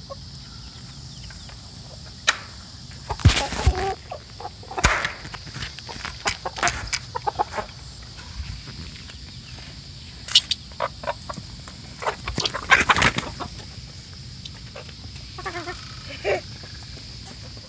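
Chickens clucking a few times near the end, with scattered sharp clicks and knocks earlier. A steady high insect drone runs underneath.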